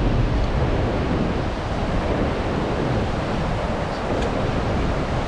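River rapids: whitewater rushing steadily around a raft, with wind buffeting the microphone.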